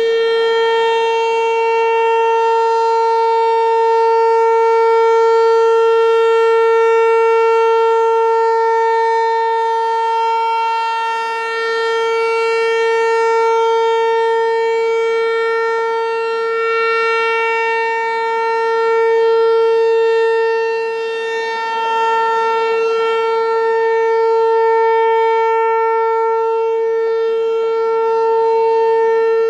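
American Signal T-128 rotating outdoor warning siren sounding a steady single-tone alert signal for a tornado drill. The pitch holds level while the loudness slowly swells and fades as the horn turns toward and away.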